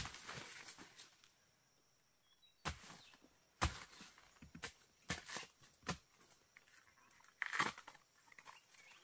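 Dry banana leaves and stalks crackling and snapping: a few sharp snaps about a second apart, then a longer crunchy rustle near the end.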